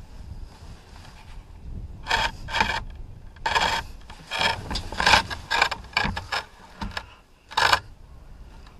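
Muzzleloader being shifted in the blind's window, rubbing and scraping against the frame in a series of short rasping strokes that start about two seconds in.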